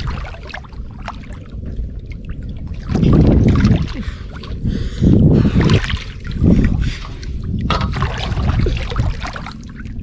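River water sloshing and splashing around people wading chest-deep and groping along the bottom by hand, with several louder surges of splashing a second or less long.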